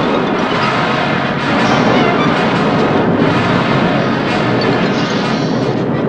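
Loud, continuous rumbling stomach-growl sound effect, mixed with music.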